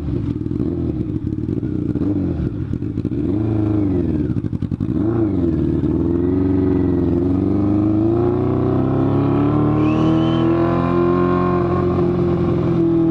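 Yamaha FZ6 motorcycle's inline-four engine under way, its pitch dipping and rising a few times as it shifts, then climbing steadily and holding high revs before easing slightly near the end. The bike has just started making a noise the rider calls ugly and strange, which was not there before.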